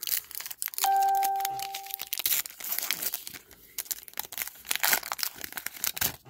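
Foil trading-card pack wrapper crinkling and tearing as it is opened by hand, with cards shuffling. About a second in, a single chime rings at a steady pitch and fades over about a second.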